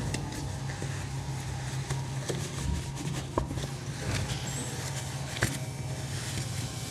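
Handling noise from a rally coilover shock as its neoprene cover is worked on by hand: rubbing with a few scattered light clicks and knocks, over a steady low hum.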